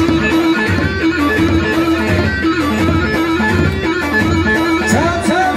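Live folk dance music for a halay line dance: a melody line over a steady drum beat, with no singing.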